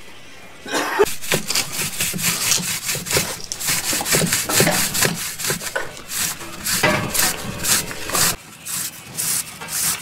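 A PVC pipe being twisted by hand to cut its way through the foam of an insulated concrete form wall, making a pipe penetration. It gives a rhythmic rasping scrape of about two to three strokes a second.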